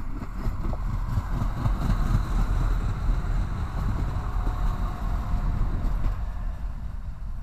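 Russian-built Srbija Voz diesel multiple unit passing close by, its engine and wheels rumbling on the rails. It grows louder as it goes past and eases off near the end.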